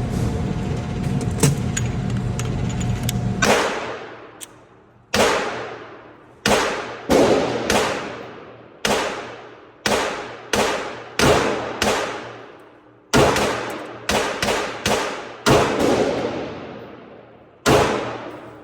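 Glock 19 9mm pistol being fired, about fifteen shots at an uneven pace with pauses between strings, each shot followed by a long echoing decay. The first few seconds before the shooting hold a steady hum with a few faint clicks.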